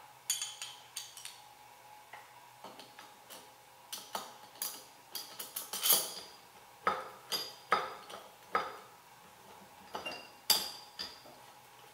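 Hand driver working steel screws on a collet chuck, making a scattered, irregular series of sharp metallic clinks and ticks as its tip seats in and knocks against the steel. The loudest clinks come about halfway through and near the end.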